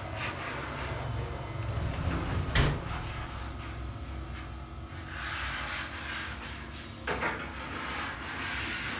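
Metal-framed glass sliding door panel pushed along its track by hand, the rollers rumbling, with one sharp knock about two and a half seconds in and a longer rushing slide about five seconds in that ends in a click.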